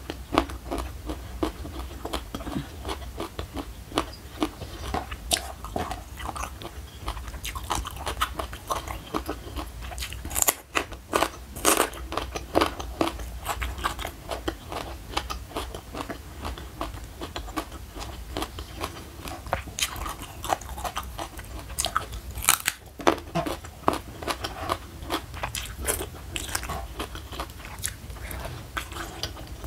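Close-miked chewing of a raw, crunchy green vegetable stalk: irregular wet crunches and crackles throughout. Louder bites come about ten, twelve and twenty-two seconds in.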